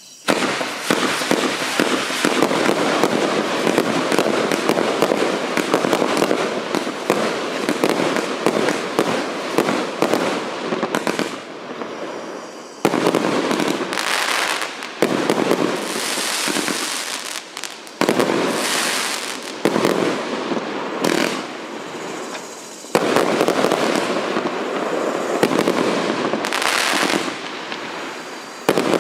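A 184-shot consumer fireworks cake firing a dense, continuous string of shots and aerial bursts, with short lulls about 13, 18 and 23 seconds in.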